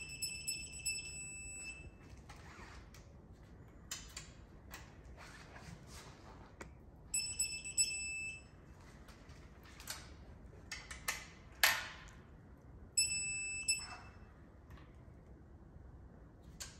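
A digital torque wrench beeps three times, each a steady high beep of about a second and a half, as each cylinder-head bolt reaches its set torque. Between the beeps come short clicks and clinks of the wrench and socket as it is moved to the next bolt.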